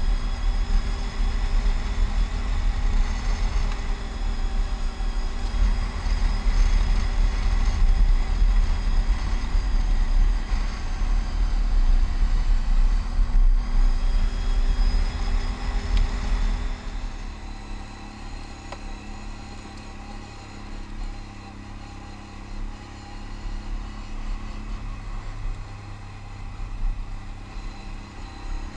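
Can-Am ATV engine running under way on a gravel road, with heavy low rumble from the ride. About seventeen seconds in the sound drops noticeably and settles into a steadier, quieter run.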